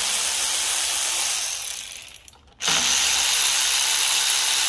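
Power ratchet running in two runs, undoing the nuts on the oil cooler pipe joints: the first tails off about two seconds in, and after a short pause a second run starts abruptly.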